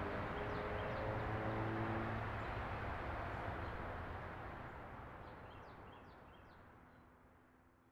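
Outdoor ambience: a steady rush of background noise with a low engine-like hum that stops about two seconds in, and a few bird chirps, all fading out gradually toward the end.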